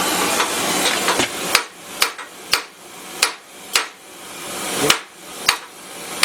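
Hammer blows on a rivet setting tool, heading a hot rivet on a steel Jeep frame crossmember: about eight sharp strikes, roughly two a second, starting about a second and a half in. Before the blows, a steady hiss.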